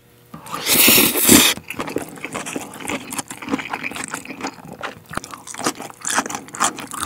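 A loud slurp of stir-fried spicy instant ramen noodles lasting about a second near the start, then close-up chewing with many small crunchy, wet clicks.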